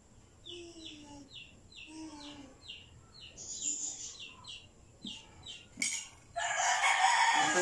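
Birds calling: a run of short, quick chirps, about two a second, then one loud call lasting about a second and a half near the end.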